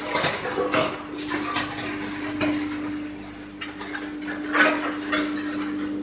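Drum wood chipper running with a steady hum, with irregular clattering knocks over it, the loudest about four and a half seconds in.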